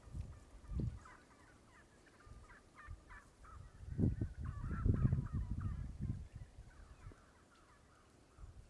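Birds calling outdoors: a run of quick, chattering notes from about a second in until about seven seconds, over a low rumble that is loudest around four to six seconds in.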